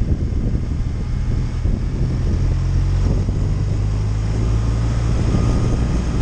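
Touring motorcycle's engine running steadily at road speed, with wind noise on the microphone.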